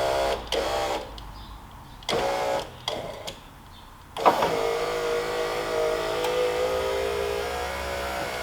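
Porsche 944 electric window motor running: a few short runs, then a click about four seconds in and a steady whine lasting about four seconds as the freshly reassembled window winds down to the bottom.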